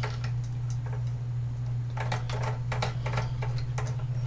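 A quick run of light clicks and taps from about two seconds in, as small parts are handled and fitted to a soldering station's preheating plate, over a steady low hum.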